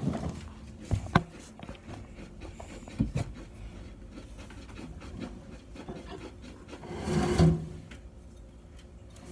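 Handling noises: a few light knocks and scrapes in the first three seconds, then a louder rustle about seven seconds in as a hand reaches into the tank to drop mealworms.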